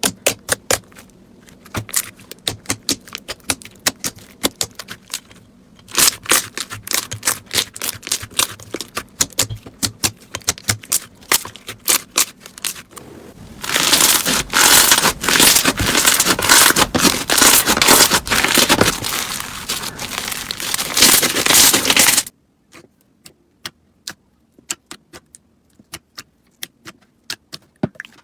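Slime being squeezed and poked by hand, giving rapid sticky clicks and crackles. A loud, dense stretch of crackling comes in the middle, then it cuts off suddenly to sparse, quieter clicks.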